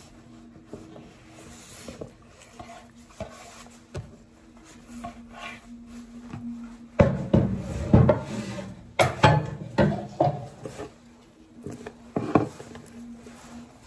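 Diced potato and meat scraped off a wooden cutting board into a ceramic bowl: the board rubs and knocks against the bowl. A cluster of loud knocks and clatters comes about halfway through and another near the end, over a low steady hum.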